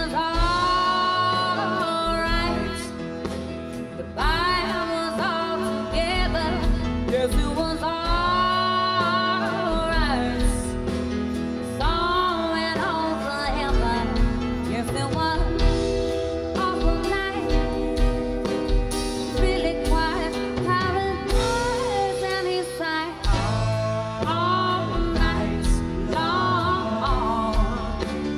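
A woman singing lead vocals over a live rock band with drum kit and electric guitars, in a slow song.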